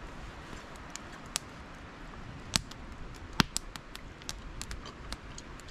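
Wood campfire crackling: irregular sharp pops and snaps over a steady hiss, with two louder pops near the middle.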